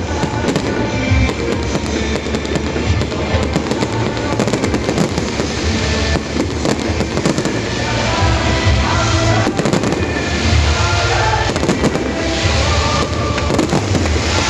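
Fireworks bursting in rapid, irregular succession, with music playing alongside.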